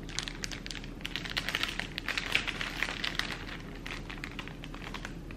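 Clear plastic packaging sleeve crinkling as it is handled, in quick, irregular crackles.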